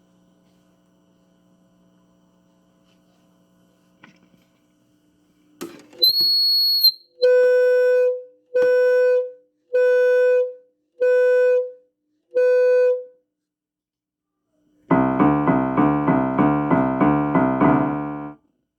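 Electronic alert-tone intro for a mock emergency alert broadcast. One high beep, then five lower buzzy beeps about a second and a half apart, then about three seconds of fast repeated keyboard chords that fade out.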